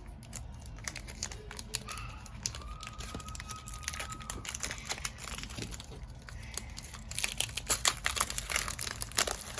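Pokémon TCG booster pack's foil wrapper crinkling as it is handled and torn open, a run of crackles that grows denser and louder near the end.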